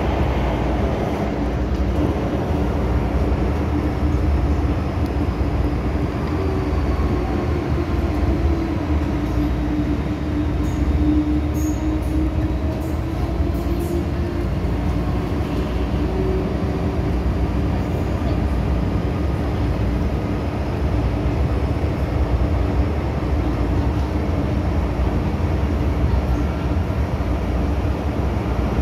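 Hong Kong MTR M-Train running, heard from inside the car: a steady low rumble of wheels on track, with a motor whine that rises slowly for the first ten seconds or so and then falls away.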